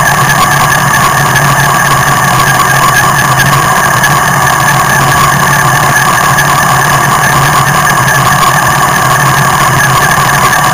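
Motorcycle engine idling steadily at a constant pitch, loud and close.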